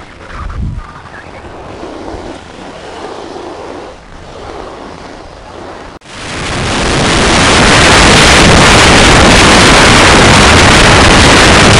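Wind rushing over the camera microphone of a mountain bike speeding down a snow slope. The first six seconds are a moderate, uneven rush; then the noise jumps to a loud, steady hiss that swells within about two seconds and stays pinned at full level, the microphone overloaded by the wind at speed.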